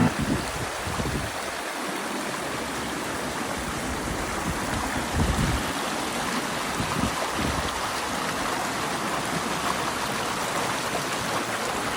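Stream of clear water flowing steadily over rocks, with a few brief low surges.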